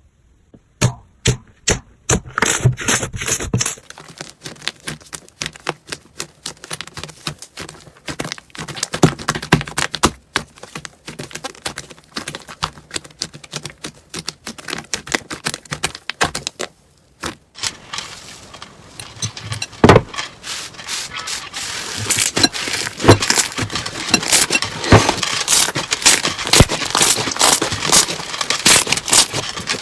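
Slime being squeezed, pressed and poked by hand, giving dense runs of sharp crackling clicks and pops. The sound changes character about four seconds in and again after a short break near the middle, as one slime clip gives way to the next.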